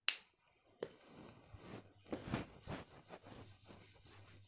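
A sharp click, then a whiteboard being wiped with a sponge eraser: a series of uneven rubbing strokes about two a second over a faint low hum.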